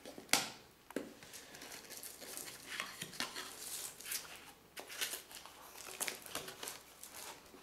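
Cardboard box and packaging being handled and opened by hand: a run of short rustles, crinkles and scrapes, the sharpest about half a second in.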